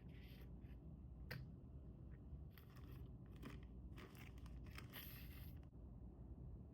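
Faint handling sounds of packaging and a plastic phone case: a run of brief rustles and crinkles, with one sharp click a little over a second in, stopping about a second before the end.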